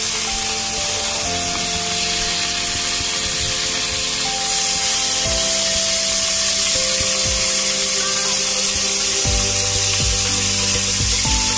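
Background music of held, slowly changing notes, with a deeper bass note coming in near the end, over beef slices sizzling in hot oil in a frying pan.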